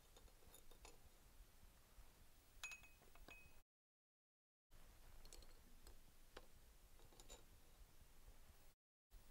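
Near silence with a few faint clicks and clinks of glassware: a glass dropper touching the reagent bottle and beaker as concentrated hydrochloric acid is dispensed. The sound cuts out completely for about a second before the middle.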